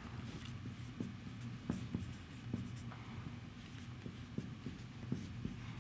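Faint marker-pen strokes and taps on a whiteboard as symbols are written, in short scattered scratches.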